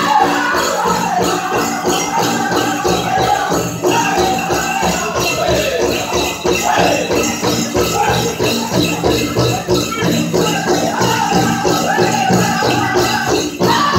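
Powwow drum group singing a contest song over a steady drumbeat, with the jingling of the dancers' leg bells.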